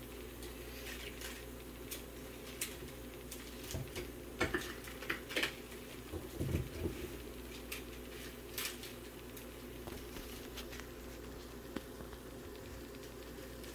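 Pork-rind tortilla cooking in oil in a cast iron skillet: a faint sizzle with scattered crackles and pops over a steady low hum. A few soft knocks come between about four and seven seconds in.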